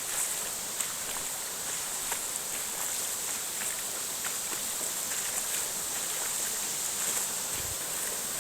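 Steady rushing hiss of a waterfall, with scattered light ticks over it.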